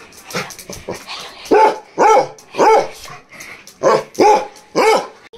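A dog barking in two quick runs of three loud barks. These are excited greeting barks, welcoming a familiar visitor.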